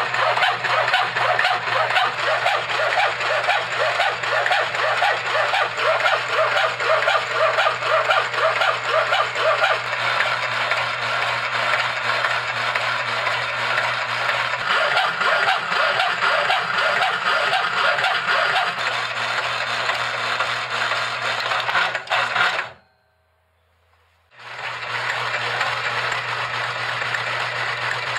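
Homemade motor-driven power hacksaw running: the electric motor hums steadily while the reciprocating blade saws through an aluminum bar with a rhythmic rasp on each stroke. The sound cuts out for about a second and a half near the end, then resumes.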